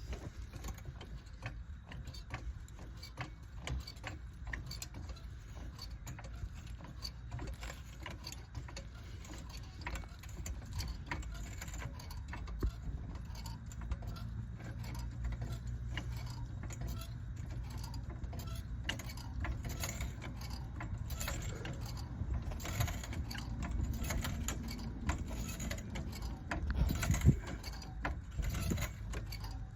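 Metal tools clinking, rattling and ratcheting during work on a car's front suspension, with a faint steady hum through the middle and a few louder knocks near the end.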